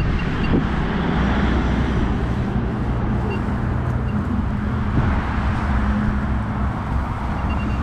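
Steady rumble of road traffic, with cars going by on the street alongside.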